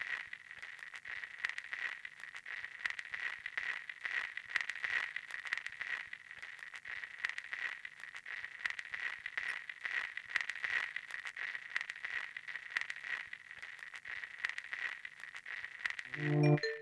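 Steady crackling and fizzing over a thin, continuous high whine. Chiming tuned-percussion music begins just before the end.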